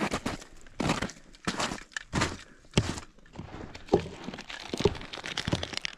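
Footsteps crunching in snow at a walking pace, about one and a half steps a second.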